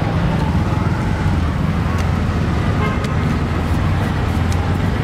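Steady rumble of city street traffic, with a few faint light clicks.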